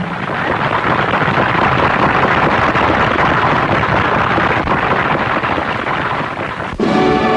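Large crowd applauding: dense, steady clapping that breaks off about seven seconds in.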